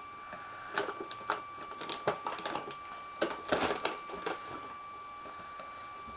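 Packaging being handled as a cardboard toy box is opened: irregular rustles, crinkles and scrapes, stopping about four and a half seconds in. A faint steady high whine runs underneath.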